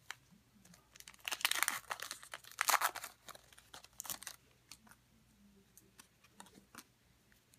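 Trading-card pack wrapper from a 2013 Panini Contenders football pack crinkling as it is torn open and pulled off the cards, for about two seconds, followed by a few soft clicks of the cards being handled.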